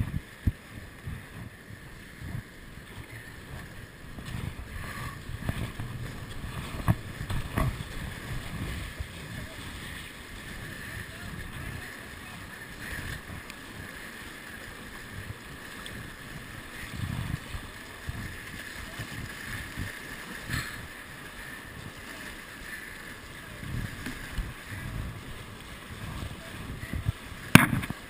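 Steady rush of whitewater rapids, with wind rumbling on the microphone and a few sharp knocks, the loudest near the end.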